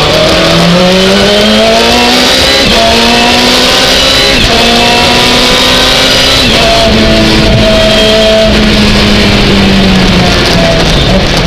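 Lotus Exige GT3 race car engine heard from inside the cockpit under load, its revs climbing slowly through a long gear with a short dip about six and a half seconds in, over a steady hiss of rain spray and wet tyres.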